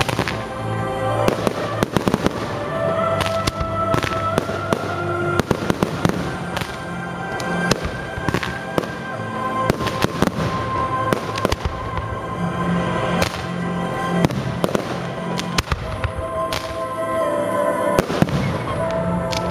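Fireworks display: aerial shells bursting in a rapid run of sharp bangs, with music playing underneath in sustained notes.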